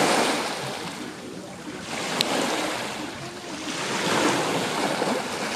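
Small lake waves breaking on a pebble shore and washing back, the rush swelling and fading every couple of seconds. A brief click about two seconds in.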